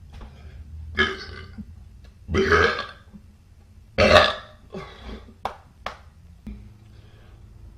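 A person belching deliberately, about four burps in a row: a short one about a second in, a longer one at about two and a half seconds, the loudest about four seconds in, and a shorter one just after.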